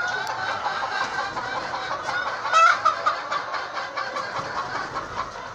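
A flock of hens clucking, many calls overlapping, with one hen giving a louder, sharper call about halfway through.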